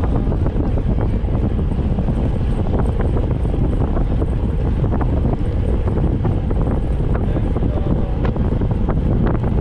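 Heavy wind buffeting the microphone of a camera riding along on a moving bicycle, a steady low rumble with scattered small ticks and rattles.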